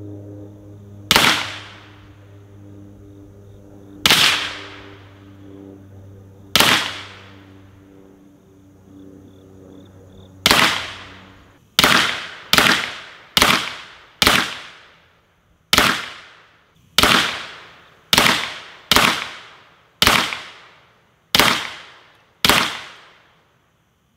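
About fifteen rifle shots, 5.56 from an AR-15-type rifle, hitting a hard-mounted AR500 steel plate at about 30 yards. Three come slowly, several seconds apart, then a quicker string of about one a second. The plate is bolted to its bracket, so hits give a flat slap rather than a ring. A low steady hum underlies the first half and stops about halfway through.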